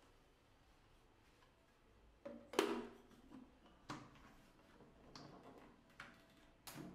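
Plastic lid of a Chefbot Compact multicooker set on its stainless steel bowl and the lid's two locking clamps pressed shut: several short clunks and clicks, the loudest about two and a half seconds in.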